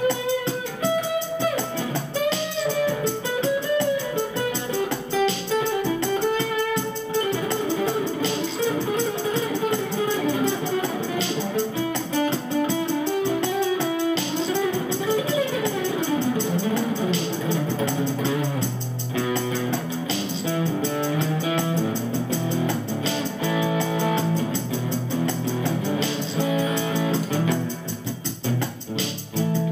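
Acoustic guitar played through an overdrive and a small amp, picking a slow melody full of bent and sliding notes. About two-thirds of the way in, a lower pattern of repeated notes takes over.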